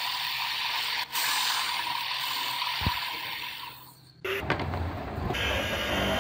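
Wood lathe spinning a wooden clock-face disc with a steady whirring hiss and a steady tone, which fades away a little before four seconds in. About four seconds in a lower, steady electric-motor drone starts abruptly.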